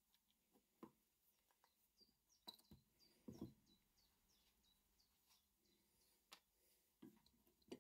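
Faint clicks and knocks of an old breast drill's metal parts and hand tools being handled on a wooden bench, the loudest knock about three and a half seconds in. A bird chirps faintly in the background in a run of short high notes.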